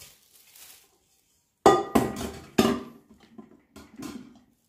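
Stainless steel inner cooking pot of an electric pressure cooker clanking as it is set into the cooker's housing: three sharp metallic knocks with a short ring about two seconds in, then a few lighter knocks.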